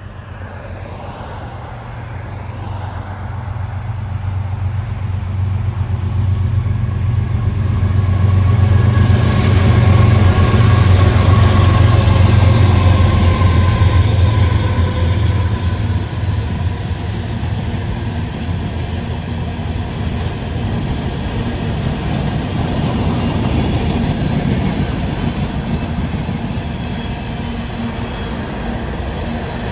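CSX freight train's diesel locomotives approaching with a low engine rumble that builds to its loudest about ten seconds in as they pass. Then a steady rolling noise of wheels on rail as a line of open hopper cars goes by.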